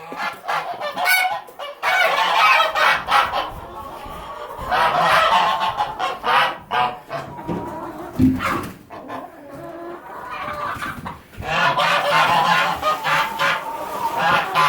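A flock of farm poultry calling loudly: many overlapping honking calls in bouts, with a quieter stretch in the middle.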